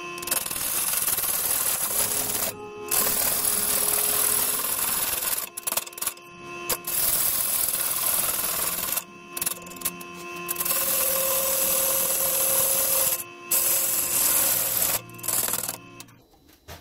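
Bowl gouge cutting into a spinning sapele blank on a wood lathe, a loud steady hiss of the cut in several long passes with brief breaks where the tool comes off, over the lathe's steady hum. The blank is being trued round, its last high spots taken off.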